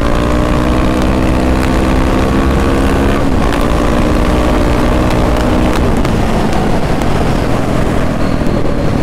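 Single-cylinder dirt bike engine pulling hard through the gears, its pitch climbing steadily and then dropping sharply at a shift about three seconds in. After about six seconds the engine tone gives way to a steady rushing noise.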